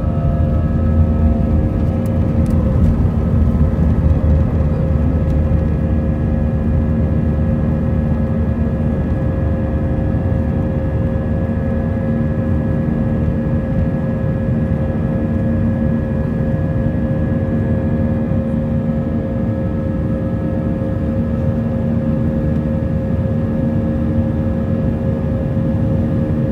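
Airbus A320 turbofan engines at takeoff power, heard from inside the cabin: a loud, steady roar with several steady whining tones. There is a heavier low rumble in the first several seconds during the takeoff roll, and the sound then holds steady through the climb.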